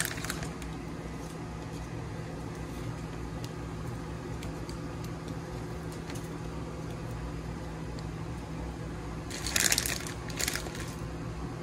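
Microwave oven running with a steady hum while it heats pot roast. About nine and a half seconds in, and again a second later, come short crackly rustles, the loudest sounds here.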